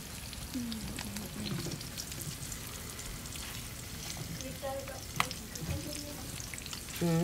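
Eggs frying in butter in a nonstick skillet, a steady crackling sizzle. A spatula scrapes and moves in the pan as the eggs are folded over, with one sharp tap about five seconds in.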